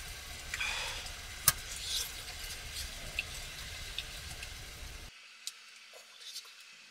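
Steady wind rumble and hiss on the microphone out in the snow, with one sharp click about a second and a half in. About five seconds in it cuts to a much quieter sound with a few small plastic crinkles.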